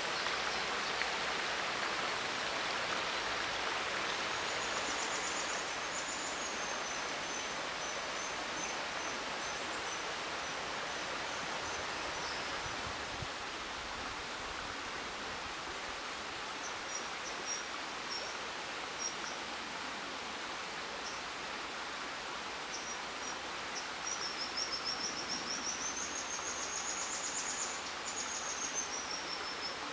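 River water rushing steadily over rocks, with high, thin, rapidly trilling calls several times, loudest and rising and falling in pitch near the end: juvenile dippers begging for food.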